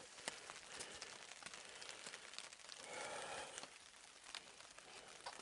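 Rain falling through evergreen trees, with scattered drips ticking close by. A brief rustle comes about three seconds in.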